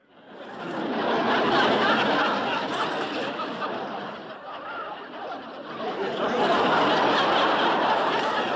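Crowd laughing, fading in from silence over about a second, easing off around the middle, then swelling again.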